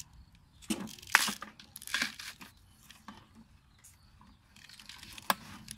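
Large knife cutting and tearing a green fibrous plant stalk: a few short slicing, ripping bursts, the loudest about a second in, and a single sharp click near the end.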